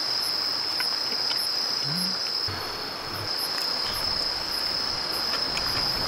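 Crickets singing: one steady, high-pitched trill that runs without a break.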